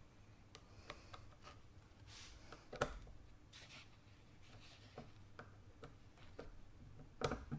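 Faint workbench handling: scattered light clicks and short scraping sounds, with two sharper clicks about three seconds in and near the end.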